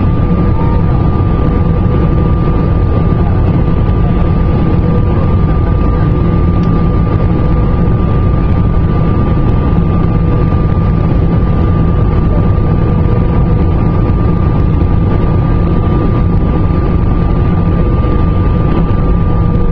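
Airliner cabin noise heard from a seat over the wing: the underwing turbofan engines run with a steady rushing noise and a steady high whine as the plane comes in low over the runway to land.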